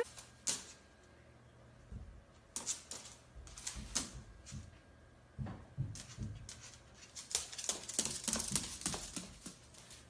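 A cockatoo's claws clicking and tapping irregularly on a hard laminate floor as it walks and hops about, with a few soft thumps.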